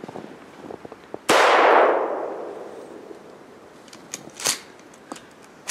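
A single shotgun blast about a second in, fired at a snowshoe hare, with its report dying away through the woods over a second or so. A few light clicks and knocks follow near the end.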